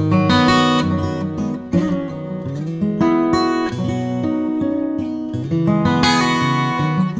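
Background music on acoustic guitar, with plucked and strummed notes and chords.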